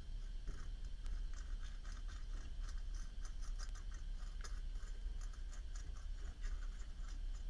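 A 3/32-inch bit twisted by hand inside a vintage Evans lighter's flint tube, scraping out the blockage: a continuous run of small, irregular scratching ticks, several a second.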